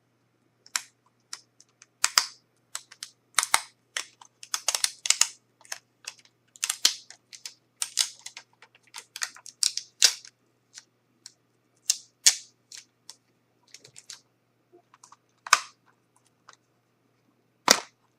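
A plastic Blu-ray case being handled: irregular clicks, taps and short scraping rustles, with one sharp, loud snap near the end.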